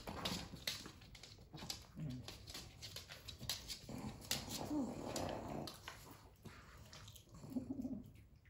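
Small Pekingese dog crunching dry kibble from a plastic bowl, a quick run of crunches and clicks. A dog gives two short whines, about halfway through and near the end.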